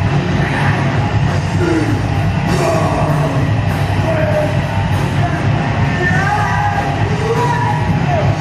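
Heavy metal played loud by a rock band: distorted guitars over a drum kit, with yelled vocals.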